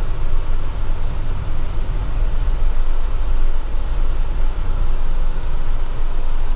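Off-road 4x4 driving slowly along a rough dirt trail: a steady low rumble of engine and tyres.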